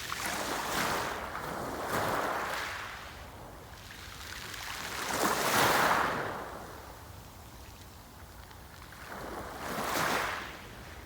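Sea waves breaking and washing up on the shore, three surges in turn, the loudest in the middle, with a softer hiss of water between them.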